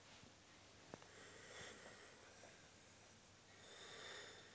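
Near silence, with faint snuffling breaths from a pug puppy and a single light click about a second in.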